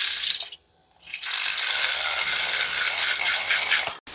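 Handheld battery milk frother whirring with a rattle: a short run that cuts off, then after a brief pause a steady run of about three seconds that stops abruptly.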